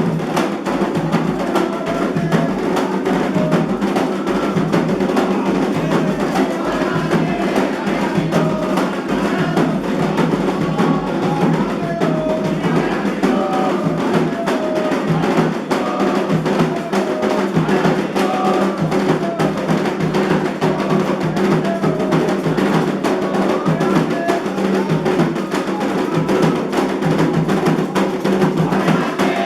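Candomblé ritual music: atabaque hand drums play a fast, steady rhythm with voices singing over them.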